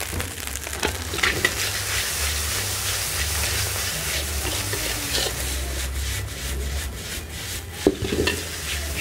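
Fried rice sizzling in a steel wok while a metal spatula scrapes and tosses it, with a steady hiss and many small scraping clicks. A sharp knock of the spatula against the wok stands out near the end.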